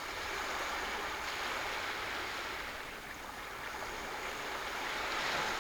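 Sea waves washing in on the shore: a steady rush of surf that eases off partway through and swells again near the end.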